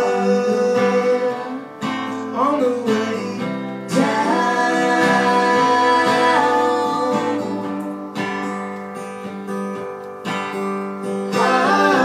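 Live acoustic guitars strumming through an instrumental break between verses of a stripped-down band performance, with a few wordless sung notes and one long held note in the middle.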